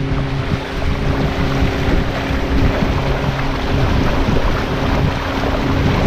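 Motorboat engine running steadily at cruising speed, with water rushing and spraying along the hull and wind buffeting the microphone.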